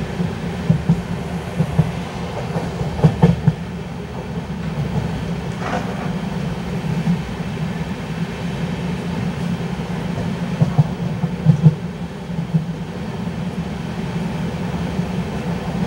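LHB passenger coaches running along the track: a steady low rumble of wheels on rail, with short sharp clacks now and then as the wheels pass over rail joints.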